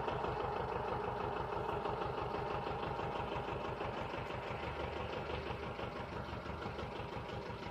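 Aircraft tow tractor's engine idling steadily, with a fast even low pulsing.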